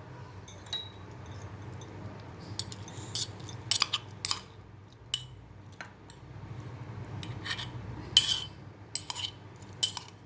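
Kitchen utensils clinking and scraping against a small mortar in scattered, irregular strikes, as crushed cactus pulp is scooped out into a cotton straining cloth.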